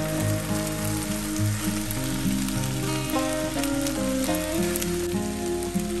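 Rice and chopped tomatoes sizzling in oil in a pan, a steady crackling hiss, under background music with a melody of stepping notes.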